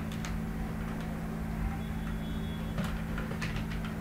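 Computer keyboard keystrokes: a single key click just after the start, then a quick run of several clicks near the end, over a steady low hum.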